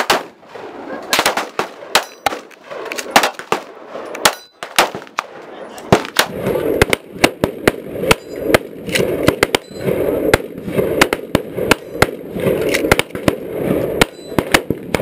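Gunfire on a shooting range: many sharp shots of differing loudness at irregular intervals, some coming in quick strings, from guns firing along the line.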